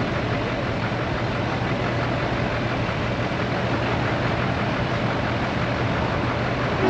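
Car engines idling and running slowly in street traffic, a steady rumble with a constant low hum.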